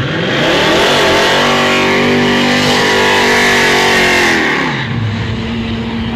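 A drag car's engine revved hard and held high during a burnout, the rear tyres spinning and hissing against the track, then dropping back to idle about five seconds in.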